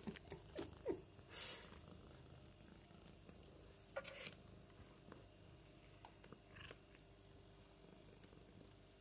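Domestic cat purring steadily and faintly, with a few short knocks and rustles, the loudest in the first two seconds and another about four seconds in.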